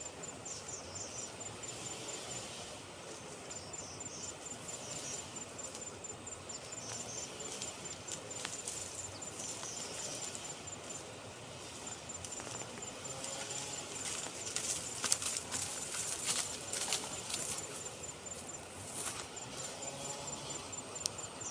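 Insect trilling in fast, even high-pitched pulses, in runs of a few seconds broken by short gaps, over a steady outdoor hiss. A cluster of sharp crackles and rustles comes about two-thirds of the way through.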